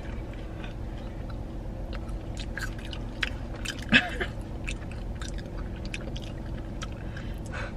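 A person chewing fast food close to the microphone: scattered small wet clicks and mouth noises. A brief vocal sound about four seconds in is the loudest moment.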